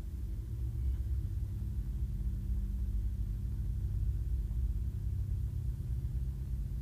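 A low, steady rumble with a faint hum.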